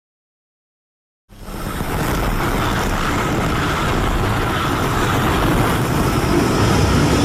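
Silence for about a second, then a dense, rumbling noise fades in and holds steady: a fan-made Godzilla sound effect.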